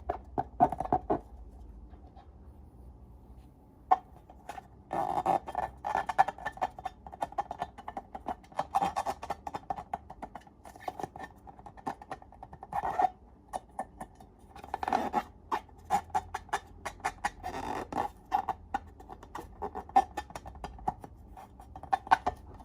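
Slime being squeezed and worked by hand, giving irregular sticky clicks and crackles that come in dense clusters with quieter gaps between them.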